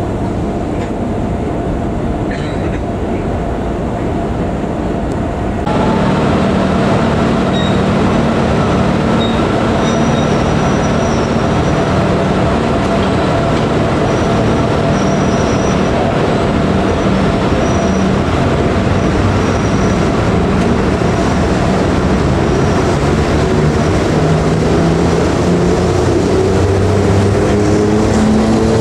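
FS E.656 rheostatic electric locomotive running, its twelve traction motors giving a steady humming whine. It gets louder about six seconds in, and near the end the whine rises in pitch as the train picks up speed.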